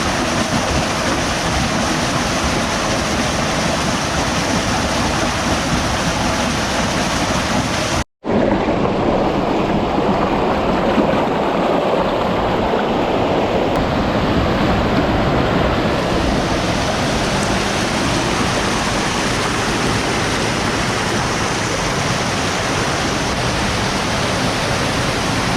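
Kanarra Creek's water rushing steadily, a constant roar heard through a sealed waterproof camera case. The sound drops out for an instant about eight seconds in, then continues somewhat duller for several seconds.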